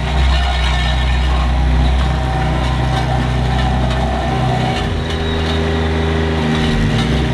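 Scania R520's V8 diesel engine running steadily at low revs. Its low note shifts about five seconds in and settles back near the end.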